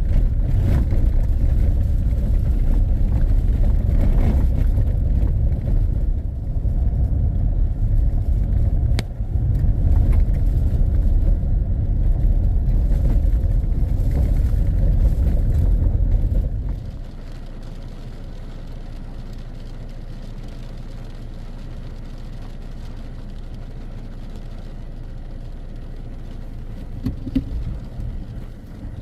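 Strong wind buffeting the microphone in a heavy low rumble over steady rain; about seventeen seconds in the rumble drops away sharply, leaving a quieter, even wash of rain and wind.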